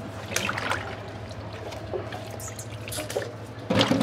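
Water splashing and dripping as pieces of cassava and plantain are washed by hand in a metal saucepan, with small scattered splashes and a louder splash near the end as a hand goes into the pot.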